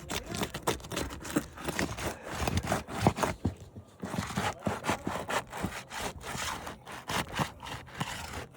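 Scraping, rubbing and quick sharp knocks as GAF Natural Shadow asphalt shingles are pried up and their staples worked loose on a roof; the shingles are coming apart as they are pulled, a sign the roof cannot be repaired.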